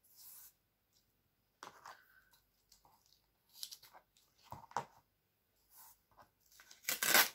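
Masking tape and paper being handled: a strip of masking tape cut from the roll with scissors and pressed onto a sheet of paper, with scattered rustles and crackles and one longer, louder rasp near the end.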